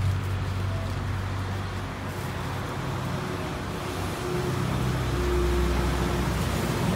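Road traffic: motor vehicle engines running, heard as a steady low hum over a general noise of passing vehicles.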